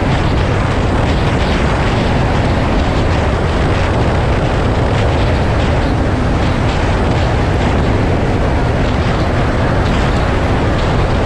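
Storm wind buffeting the microphone of a small boat running at speed through rough, choppy seas: a steady, heavy rumble and rush, with the boat's twin Mercury 225 outboards and rushing, splashing water mixed in.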